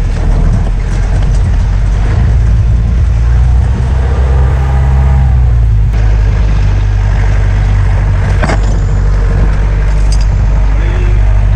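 Open jeep's engine running steadily under load in four-wheel drive on a rough off-road track: a loud low drone, with a couple of sharp knocks from the jolting vehicle near the end.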